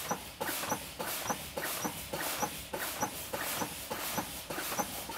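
Truck air brakes exhausting air in short hissing puffs, about three a second, as the service brake pedal is pumped rapidly with the engine off. Each application vents air, bleeding tank pressure down toward the low-air warning.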